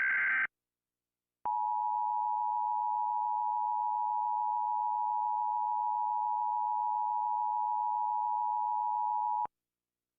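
Emergency Alert System attention signal: the steady two-tone alert (853 and 960 Hz together) sounds loud and unchanging for about eight seconds, then cuts off abruptly. It is preceded by the tail of a harsh electronic data burst, the digital header squawk, which ends about half a second in.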